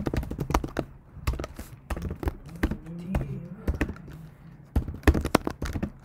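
Typing on a computer keyboard: a run of irregular keystrokes, with a cluster of louder clacks about five seconds in.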